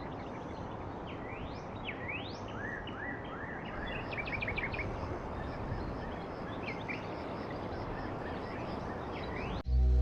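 Outdoor nature ambience: several birds chirping and trilling in quick rising and falling calls over a steady even hiss. It cuts off suddenly near the end as music starts.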